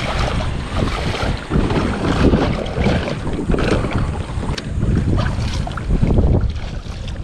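Wind rumbling on the microphone, with shallow water sloshing and splashing around a stand-up paddle board as it is paddled off the beach.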